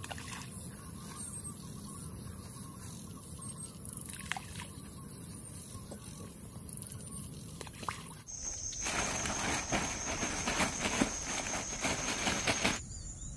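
Balls of groundbait plopping into a still lake a few times over a steady high insect drone. About eight seconds in, a louder, denser chorus of insects and birds comes in, then cuts off abruptly near the end.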